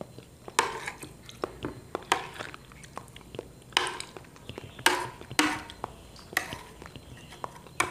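A metal spoon clinking and scraping against a ceramic plate as it cuts into soft chocolate pudding with vanilla custard sauce, about seven sharp clicks spread through, some with a short scrape. Soft chewing sounds lie beneath.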